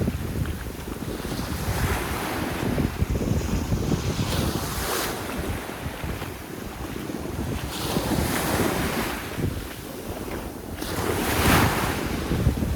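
Sea waves breaking and washing up onto a sandy beach, a fresh surge of surf about every three seconds. Wind buffets the microphone, adding a constant low rumble.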